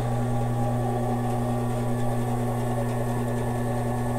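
WEN 3962 10-inch bandsaw running with no load on its first start-up, a steady, quiet hum with one low tone held level, the wheel turning with its cover open.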